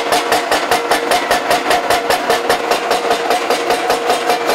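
Rock-crusher roller mill running with its worn steel rollers knocking together fast and evenly, about six knocks a second, over a steady hum. The knocking comes from the washboard and flat spots worn into the wheels.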